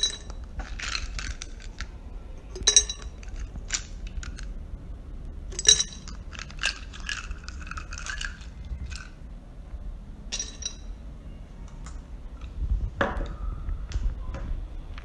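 Ice cubes being dropped into an empty bottle, each landing with a sharp, ringing clink. There are several loud clinks a few seconds apart, with lighter rattling between them.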